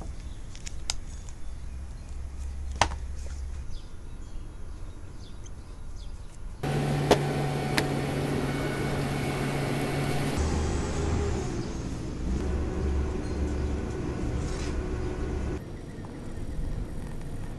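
Sharp clicks of a leather wallet's metal snap being worked by hand over a steady low hum. The hum grows louder for a few seconds with a couple of ticks, and near the end a gloved hand rubs paste wax into the leather.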